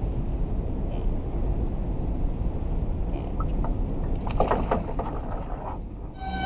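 Steady low wind rumble on the microphone over an open fishing boat, with a few brief knocks and a splash about four seconds in as a blue catfish is dropped back over the side into the river.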